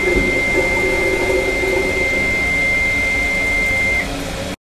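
Yanmar 4JH5E engine control panel warning buzzer sounding one steady high beep, which stops about four seconds in. It is the alarm a Yanmar panel gives while it is switched on and the engine is not yet running. Under it is the steady hiss of heavy rain.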